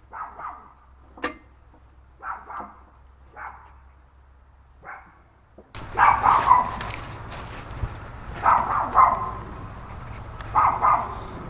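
A dog barking repeatedly in short single barks, getting louder after about six seconds.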